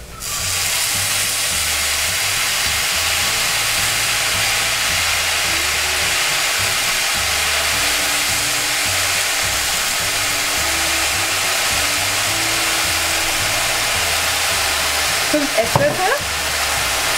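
Soy sauce sizzling in a hot non-stick pan of fried egg noodles as it is spooned in: a steady, loud hiss that starts suddenly as the first spoonful hits the pan.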